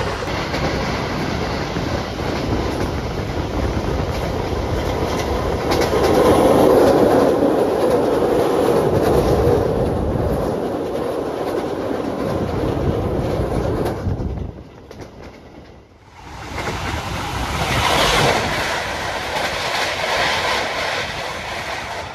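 INKA stainless-steel New Generation passenger train running on the rails: a steady rumble with repeated wheel clicks. It drops much quieter briefly about two-thirds of the way through, then picks up again.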